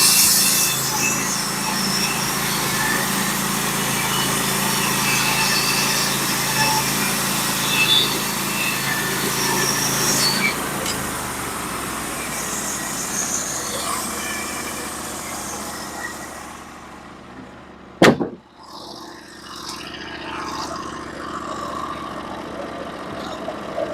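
Portable band sawmill's engine running under load as the band blade cuts through a white pine log, a steady drone with a loud hiss of cutting. About ten seconds in the load eases and the sound fades down to the engine running lighter, with one sharp click near the end.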